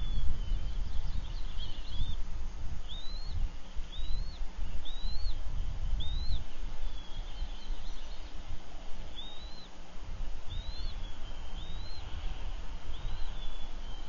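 Bald eaglet's high-pitched peeping chirps, each rising then falling, repeated about once a second with a short pause around the middle. A steady low rumble runs underneath.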